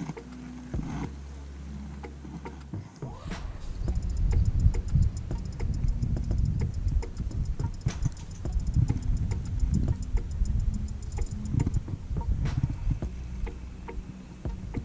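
Fishing reel being wound in, giving a fast, even ticking for several seconds. Under it is a loud, uneven low rumble on the microphone.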